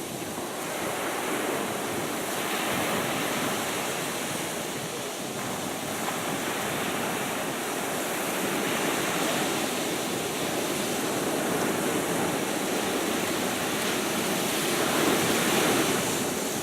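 Sea surf washing on the shore: a steady rush of waves that swells and ebbs every few seconds, loudest near the end.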